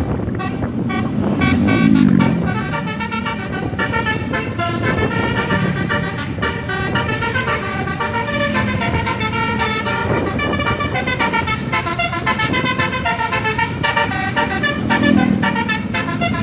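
Tour bus 'telolet' multi-tone horn tooting a rapid run of short notes that change pitch in steps, over the bus's running engine.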